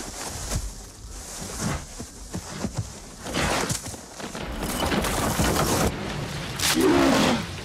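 Brown bear tearing into a rotten log, its claws scraping and cracking the dry wood in a run of irregular knocks and scrapes that grows louder partway through. A short wavering pitched sound comes near the end.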